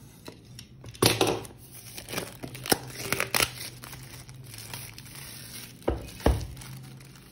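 Plastic shrink wrap being slit with a box cutter and peeled off a phone box, crinkling and tearing in irregular crackles, then two dull thumps near the end as the box is set down on the table.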